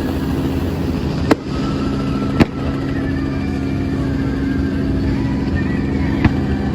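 Fireworks going off: three sharp bangs, two close together in the first few seconds and one near the end, over a loud steady low hum like a running engine.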